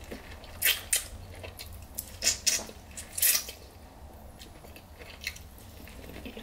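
A person eating seafood boil in sauce by hand at close range: chewing, with about five loud, sharp mouth smacks or crunches in the first few seconds, then quieter chewing.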